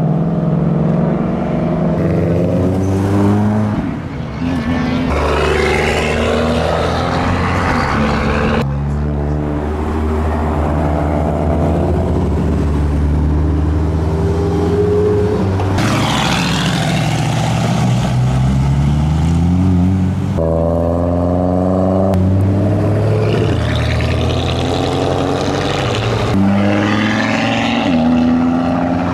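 A run of performance cars accelerating hard away from a roundabout one after another, engines revving up through the gears, among them a Ford Mustang and a turbocharged Mitsubishi Lancer Evolution. The sound changes abruptly every few seconds as one car gives way to the next.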